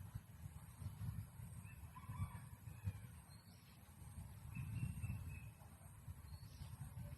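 A few faint bird calls over a steady low rumble.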